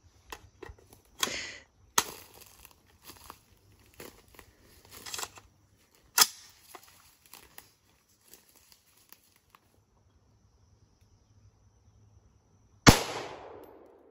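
Metallic clicks and clacks of an AR-10 rifle being handled and readied, then, near the end, a single loud .308 rifle shot with a ringing tail of about a second.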